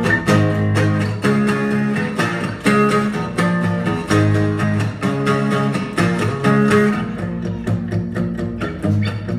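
Two acoustic guitars strumming chords together, struck again and again, with a new chord about every second and a half.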